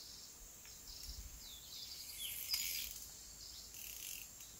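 Faint rural ambience: birds calling with short high chirps, some falling in pitch, over a steady high insect buzz, with a single soft click about halfway through.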